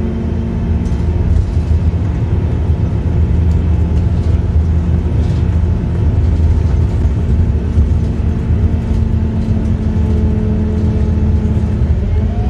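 Scania K230UB bus engine running at a steady pace under way, heard from inside the passenger saloon along with road noise and a few light rattles.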